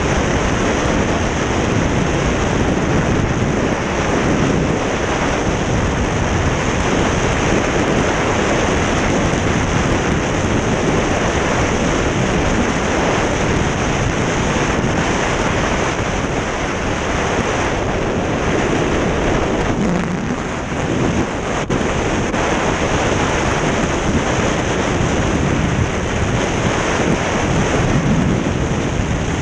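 Freefall airflow rushing over a skydiving camera's microphone: a loud, steady wind rush with no letup.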